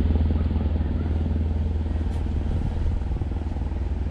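Wind buffeting the microphone: a steady, loud low rumble that flutters unevenly.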